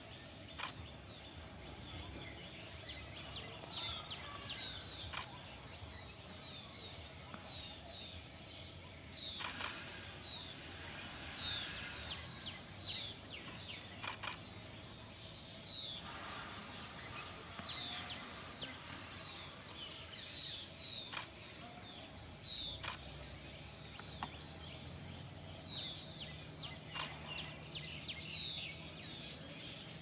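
Wild birds chirping: many short, high, falling notes repeated throughout, over a faint steady high-pitched hiss, with a few sharp clicks.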